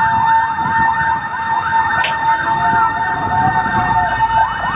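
Emergency-vehicle sirens sounding together: a fast yelping siren sweeping upward several times a second over a steady held siren tone. A brief click about two seconds in.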